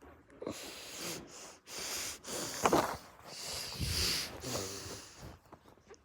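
Sneezing: gasping, snorting breaths building up, with a short loud burst about two and a half seconds in and another long hissy blast around four seconds in.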